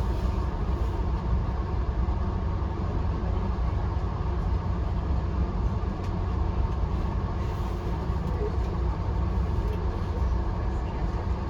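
Steady low rumble and wheel-on-rail noise of a VIA Rail passenger train running along the line, heard from inside the coach.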